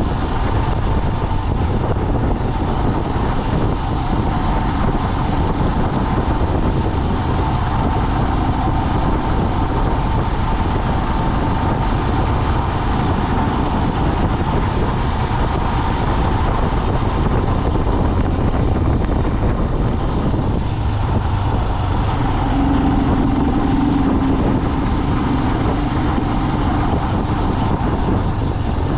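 Car on the move: steady engine and road noise. A brief steady hum rises over it about two-thirds of the way through.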